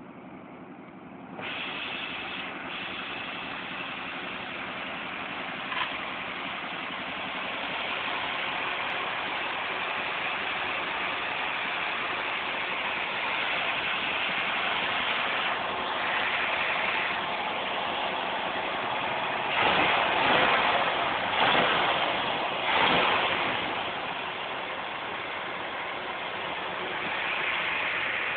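1996 Chevy Vortec engine running at idle, smooth as a sewing machine. It swells louder three times in quick succession about two-thirds of the way through.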